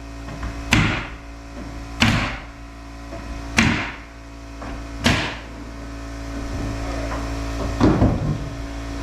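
Roof sheathing being nailed down: a sharp strike about every second and a half, each with a short ringing tail, the last one near the end a quick double, over a steady machine hum.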